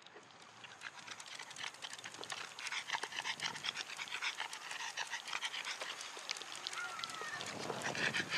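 Boston terrier panting rapidly and hard, out of breath from running.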